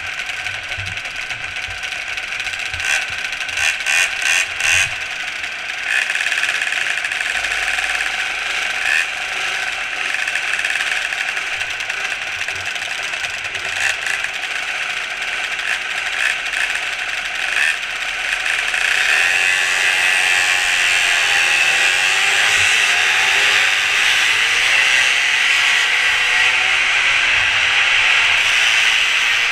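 Small mini moto engines buzzing at a high pitch, heard from the rider's helmet, with a run of sharp clicks about three to five seconds in. From about 19 seconds in, the engine note grows louder and rises and falls as the bike revs.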